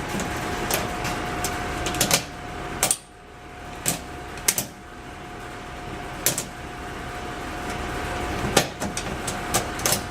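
Newly installed floor shifter being worked through the gears: a dozen or so sharp, irregular clicks and clunks, bunched up near the end, over a steady hum with a steady whine.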